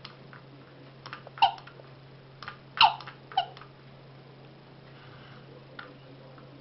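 Sound of a repaired antique terracotta doll with its rocking chair: three short squeaks that fall in pitch, the first about a second and a half in and the last two close together, among light clicks and knocks.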